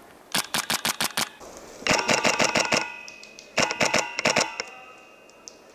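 Polarstar high-pressure-air airsoft rifle firing three short full-auto bursts of about eight shots a second, with a ringing note lingering after the second and third bursts.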